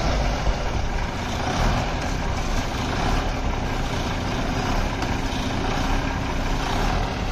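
Truck engine running steadily, a continuous low drone mixed with road noise.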